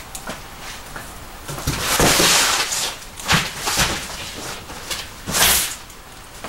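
Large cardboard shipping box and its foam packing being handled: several rustling, scraping bursts. The longest comes a bit under two seconds in, followed by shorter ones.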